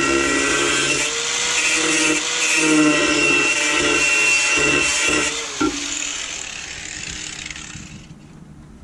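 Angle grinder grinding a weld off a steel bracket, a loud whine with grinding hiss that dips in pitch each time the disc bites. About five and a half seconds in it is switched off and winds down.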